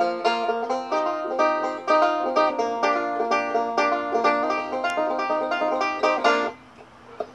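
Resonator banjo fingerpicked in a fast, bluegrass-style run of plucked notes, breaking off about a second before the end.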